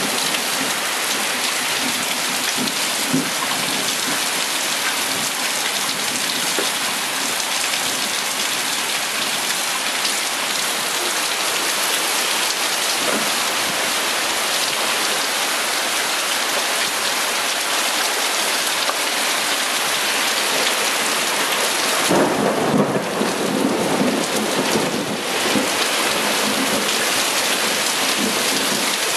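Heavy thunderstorm downpour: a steady, dense hiss of rain pouring onto the ground, roof and vehicles. About 22 seconds in, a wind gust drives the rain harder, and for a few seconds the sound turns louder and rougher.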